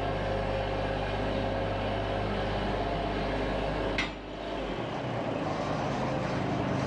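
Bobcat MT85 mini track loader's engine running steadily. A sharp clack comes about four seconds in, and soon after the deepest part of the engine rumble drops away.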